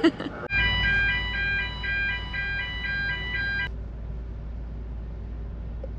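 Steady low engine rumble, starting suddenly about half a second in. For about three seconds a multi-note electronic chime pulses on and off over it, then stops abruptly.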